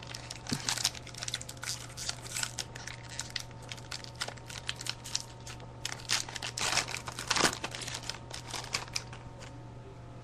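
Crinkling and crackling of foil trading-card pack wrappers and cards being handled: a dense run of small irregular crackles, over a steady low hum.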